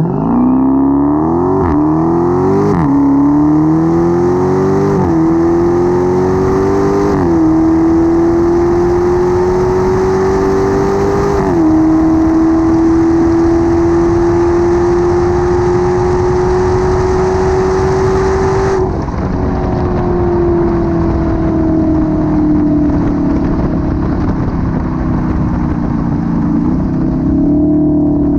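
2016 Dodge Challenger Hellcat's supercharged 6.2-litre V8 accelerating hard through the gears. The engine note climbs and drops at five upshifts in the first twelve seconds, then holds steady at cruise. From about nineteen seconds in it eases off, its pitch slowly falling, with a short rise near the end.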